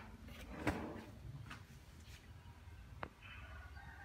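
Light plastic knocks and clicks of a scrapped AOC LCD monitor being set down on a table on its stand and let go, with a small thud about a second in and a sharper click about three seconds in.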